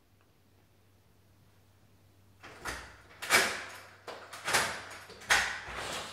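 A cloth wiping a glass window pane: a run of rubbing strokes about one a second, starting a little over two seconds in.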